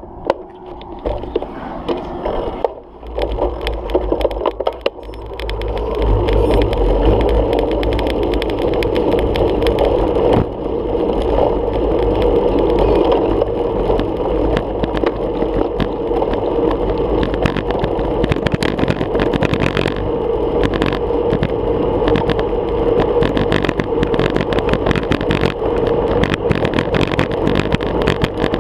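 Wind rushing over a bike-mounted GoPro and road rumble from a bicycle at speed, with a steady clatter of knocks as the camera shakes on its mount over rough road surface. It grows louder about five seconds in.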